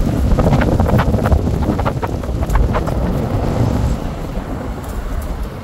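Wind buffeting the microphone: a loud, irregular low rumble with scattered crackles, easing off about four seconds in.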